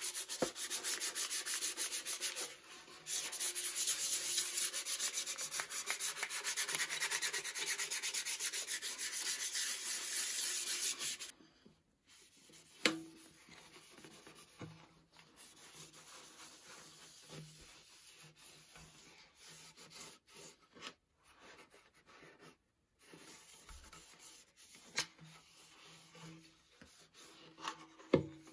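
Fast, steady hand rubbing on the hard dried-gourd shell of a gourd banjo body, which stops abruptly about eleven seconds in. After that come quieter, intermittent wipes with a cloth rag over the gourd, and a couple of sharp knocks with a short hollow ring.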